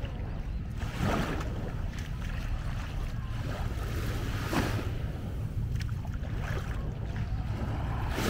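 Small sea waves washing onto a sandy beach, a rushing swell about every three and a half seconds, over a steady low rumble of wind on the microphone.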